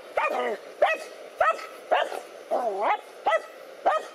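Dogs barking repeatedly at a snake, about two sharp barks a second, with one longer, wavering bark near the middle.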